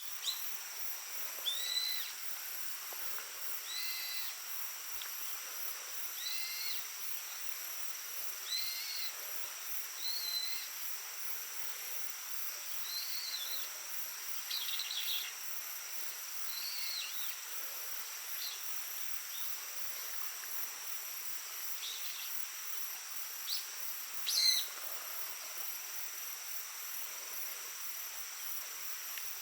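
Steady rush of a babbling stream with a continuous high insect trill over it. A bird gives short, arched calls every couple of seconds, the loudest one near the end.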